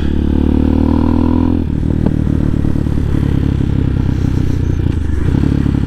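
CSC TT250 dual-sport motorcycle's single-cylinder engine running under throttle while riding over rough rocks; its pitch climbs slightly, then drops to a lower, rougher running about a second and a half in.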